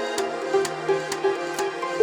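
Electronic workout music with a steady beat of about two beats a second under a repeating line of short synth notes.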